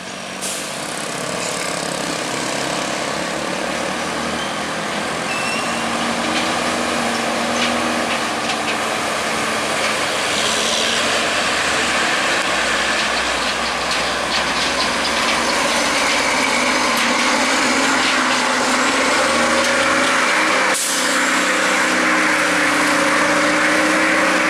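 Heavy diesel truck engines labouring up a steep mountain grade: a steady drone that grows louder as a truck draws near.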